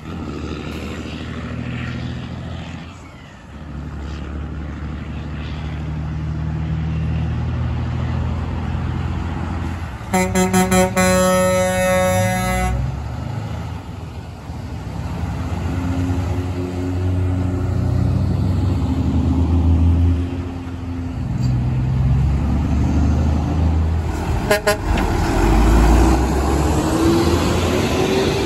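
Diesel semi trucks pulling through an intersection, their engines running and building. About ten seconds in, a truck's air horns sound one blast lasting about three seconds, with a brief toot again near the end.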